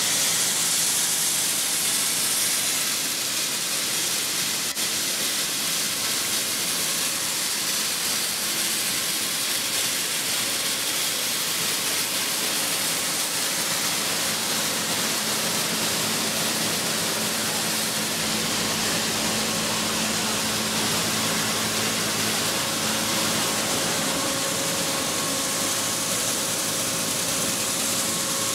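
Grain cleaning machine running steadily while cleaning maize, a constant hissing rush of air and moving grain. A faint steady hum joins in about two-thirds of the way through.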